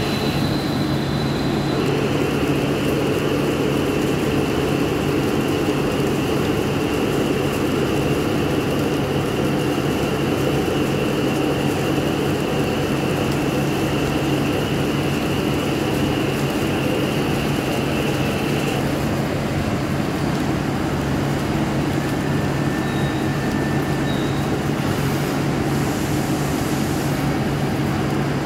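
CNC lathe running, its spindle turning a metal shaft while the tool takes a turning cut: a steady machine hum with a high steady whine that stops about two-thirds of the way in.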